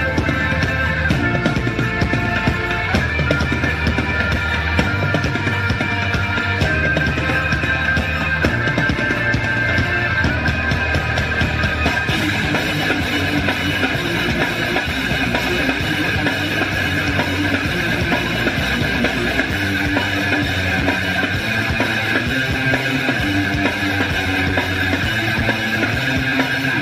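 Loud rock music with drum kit and electric guitar.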